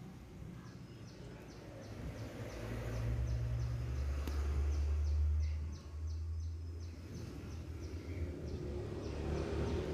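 Low engine rumble of a passing vehicle, rising about two and a half seconds in and easing off after about six seconds. Faint high ticks repeat about three times a second throughout.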